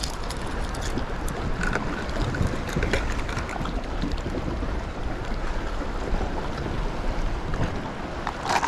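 Wind buffeting the microphone over the wash of sea waves against rocks, a steady rushing noise. A few faint clicks come from hands handling fishing tackle, with a sharper click near the end.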